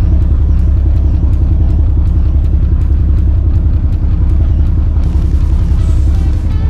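Fishing boat's engine running with a steady, loud low rumble. Faint background music comes in near the end.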